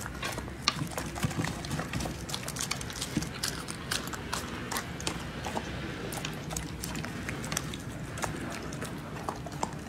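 A dog eating raw meat from a plate: a steady run of irregular wet chewing and licking clicks.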